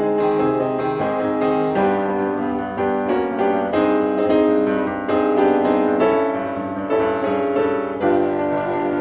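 Piano music: a solo piano accompaniment playing steady chords and melody notes.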